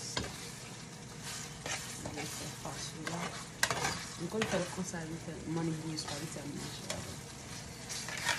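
A spoon stirring a thick ground-beef and tomato meat sauce in a large pan on the stove. The sauce sizzles steadily, and the spoon scrapes and clicks against the pan now and then.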